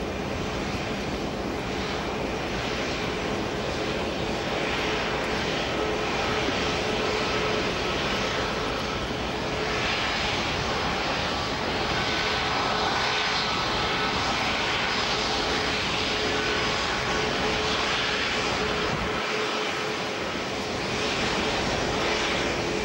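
Boeing 737 MAX's CFM LEAP-1B turbofans running at taxi thrust: a steady jet whine and rush with a few thin steady tones, a little stronger in the middle as the engines face the microphone.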